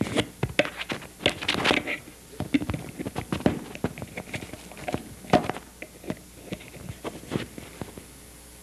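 Clip-on lavalier microphone being handled on a jacket and tie: irregular rustling, scraping and knocking right against the mic.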